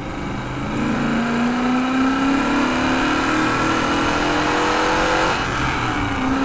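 Rover SD1 Vitesse's 3.5-litre V8 accelerating hard, its pitch climbing steadily. About five seconds in the pitch drops as the driver shifts up a gear on the manual gearbox, then it starts climbing again.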